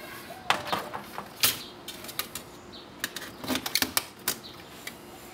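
Sheet-metal clinks and rattles as a screwdriver pries open a perforated metal shield box from a CRT monitor's circuit board: a string of irregular sharp knocks, the loudest about half a second and a second and a half in.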